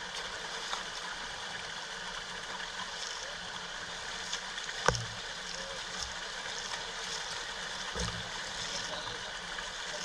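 Shallow rocky mountain stream running, a steady rush of water, with one sharp knock about five seconds in and a dull thump near eight seconds.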